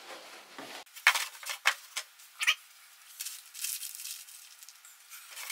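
Thin hardboard back panel laid onto the bookcase frame with a few light knocks and clatters, followed by the crinkling rustle of a small plastic bag of nails being handled.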